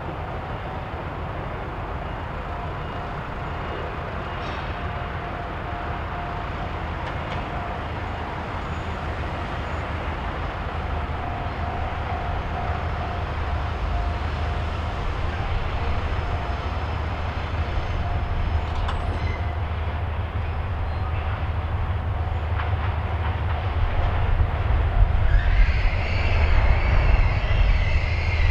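JR Freight DF200 diesel-electric locomotive hauling oil tank wagons, its diesel engine drone growing steadily louder as it approaches. About 25 seconds in, a high squeal joins it: the wheels squealing on the curved track.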